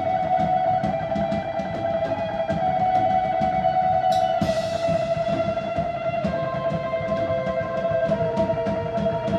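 A live drums-and-electric-guitar duo playing. The guitar holds one long, droning note while the drums pound a steady beat, with a cymbal crash about four seconds in.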